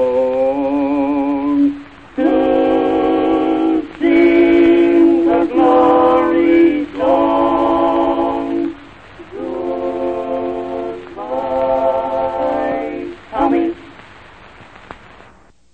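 Voices singing in harmony, a string of long held chords, the first with a marked vibrato. The singing stops near the end, leaving faint hiss.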